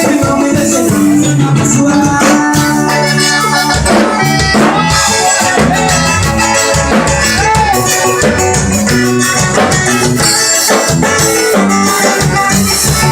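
A band rehearsing, playing loud live music with bass guitar and drums, with a shaker rattling along.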